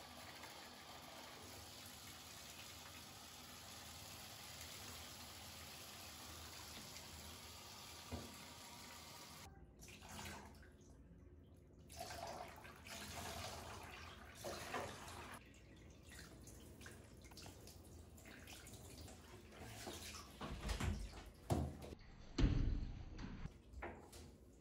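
Water running steadily from a tap, then, after a cut, intermittent splashing and handling sounds with a few dull bumps near the end.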